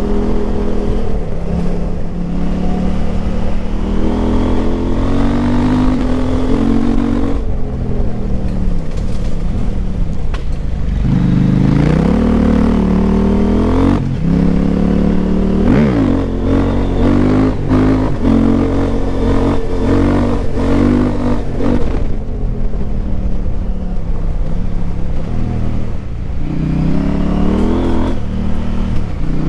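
KTM 890 Adventure R's parallel-twin engine through a Wings slip-on exhaust with the dB killer removed, ridden on the throttle: engine pitch climbs and falls repeatedly through gear changes, with a sharp climb about eleven seconds in and a quick dip and rise around fifteen seconds.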